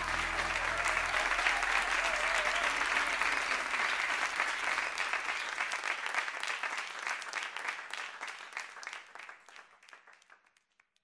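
Audience applauding at the end of a song, dying away gradually and stopping near the end, with the song's last low note fading out under it in the first second.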